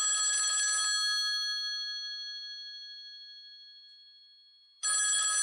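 Telephone bell ringing for an incoming call: a rattling ring of about a second whose tones die away slowly, then a second ring starting near the end.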